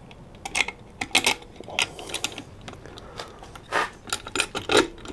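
Irregular metallic clinks and clicks of small hardware being handled and fitted: hex bolts going through conduit straps and a saw blade, metal tapping on metal.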